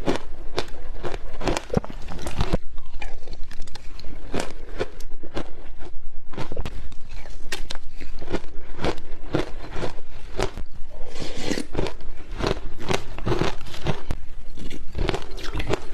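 Matcha shaved ice being bitten and chewed, a steady run of crisp, irregular crunches.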